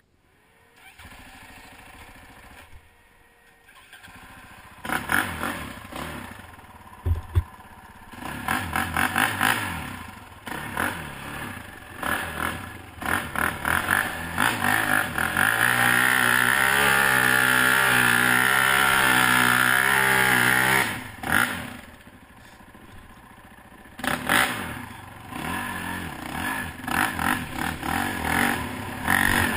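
Quad ATV engine under way: faint at first, then revving up and down with the throttle, held at steady high revs for several seconds in the middle, easing off and picking up again near the end.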